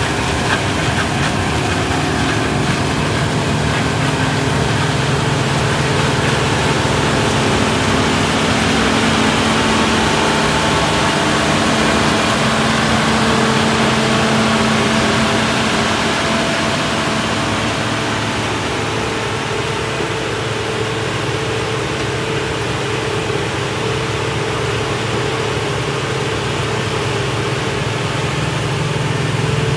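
Self-propelled sweet corn harvester running steadily as it picks, its engine and machinery making a continuous low drone with a few held tones that shift slightly about halfway through.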